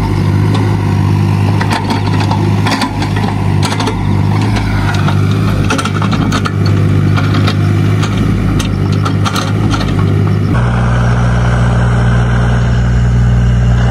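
Yanmar mini excavator's diesel engine running steadily, with repeated sharp clanks and knocks from the working machine. About ten seconds in the sound cuts abruptly to a smoother, steady engine hum.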